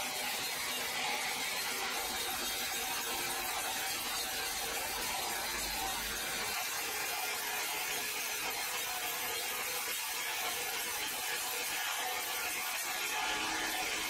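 Large horizontal band sawmill cutting through a big log: a steady, even sawing noise with the machine's hum underneath, unchanging throughout.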